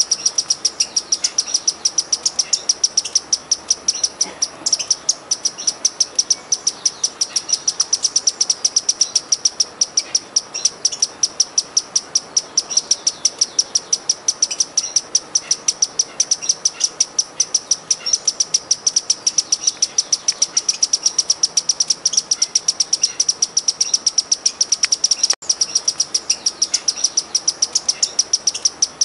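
Sparkling violetear hummingbird singing: one high, sharp chip repeated evenly about four times a second without pause, dropping out for an instant near the end.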